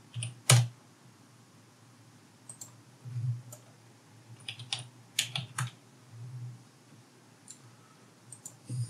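Scattered keystrokes on a computer keyboard, a few quick presses at a time with pauses between them. The sharpest keystroke comes about half a second in.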